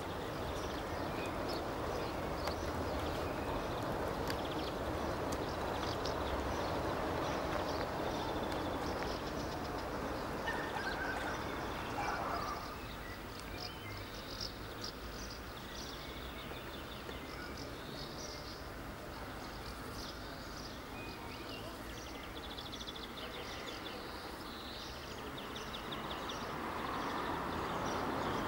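Outdoor ambience: a steady background hiss that drops in level about twelve seconds in, with scattered high bird chirps and short, rapid insect trills over it.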